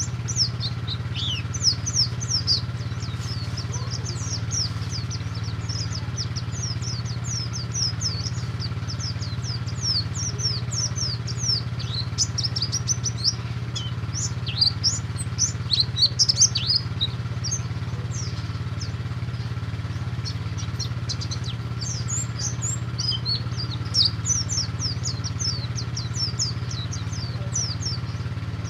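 A white-eye (pleci) singing in the 'ngalas' style: a long, fast run of high, downward-slurred chirps, busiest around the middle. A steady low hum runs underneath.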